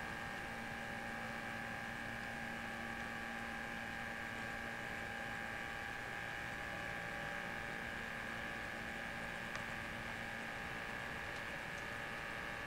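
Steady hum with a high, even whine from an N scale model train running slowly: the locomotive's small electric motor and the wheels rolling on the track.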